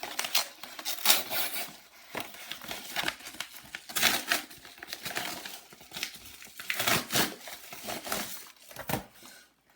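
Product packaging being handled and opened by hand: irregular crinkling and rustling with sharp crackles.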